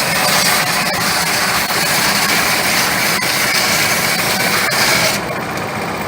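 CNC router running steadily, its spindle milling a wooden keypad; the high hiss drops away for about the last second.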